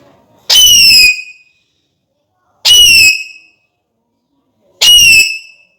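Alexandrine parakeet whistling: three loud, identical high calls about two seconds apart, each about half a second long and dipping slightly in pitch.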